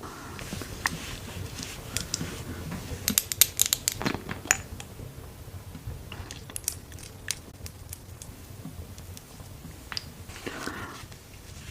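Makeup products and their cases being handled for ASMR: sharp clicks and taps of cases and lids, with a quick run of clicks about three seconds in and a soft rustle near the end.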